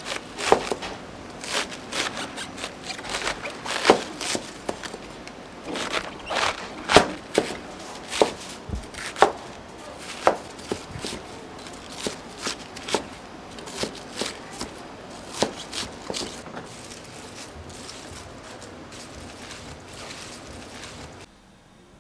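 Kitchen knife chopping on a cutting board in irregular strokes, dense at first and thinning out over the second half, over steady kitchen background noise that cuts off shortly before the end.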